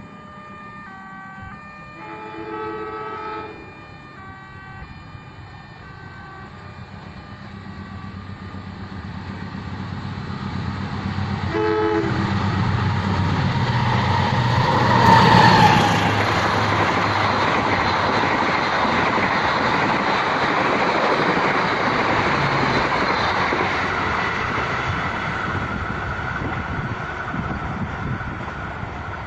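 Passenger train horn sounding several short chord blasts, then another brief toot about 12 seconds in. The train then approaches and passes close by: rumble and wheel noise build up, peak sharply about 15 seconds in with a falling tone, and stay loud as the carriages run past.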